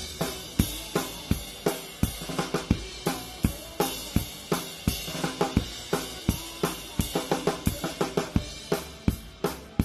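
Live rock band playing, with the drum kit loud in the mix: snare, kick drum and cymbals hitting in a steady driving beat over guitar and bass.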